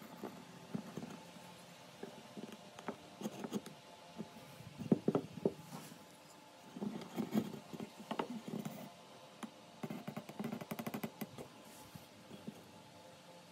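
Wooden marking gauge and timber handled while marking out a joint: scattered light knocks and short scrapes, the loudest about five seconds in and a quick run of small ticks near the end.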